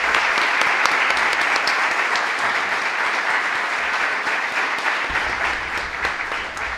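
Audience applauding steadily, a dense patter of many hands clapping that fades out near the end, following the end of a speech.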